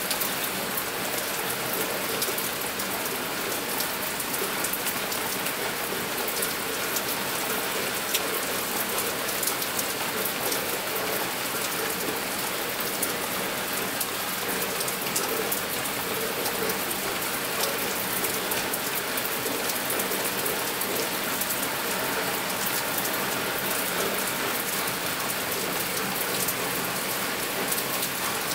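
Steady rain: an even hiss dotted with the ticks of many individual drops striking a surface.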